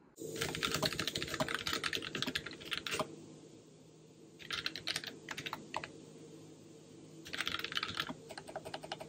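Fast typing on a computer keyboard: rapid key clicks in three spells, a run of about three seconds at the start, a short one in the middle, and another starting near the end, over a low steady hum.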